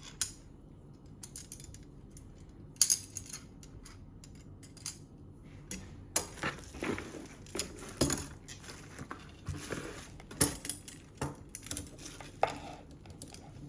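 A laptop stand being handled and adjusted: scattered sharp clicks, knocks and rattles of its hard parts, busier in the second half.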